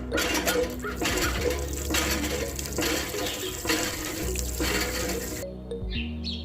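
Water splashing from a miniature hand pump, coming in surges about once a second and stopping about five seconds in. Background music plays underneath.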